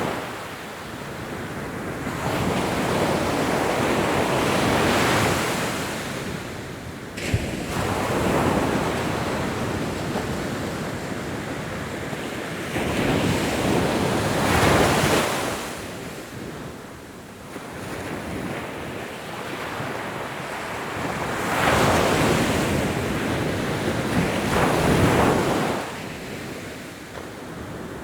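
Ocean waves breaking and washing up onto a beach, the surf swelling and falling away every few seconds. A single sharp click sounds about seven seconds in.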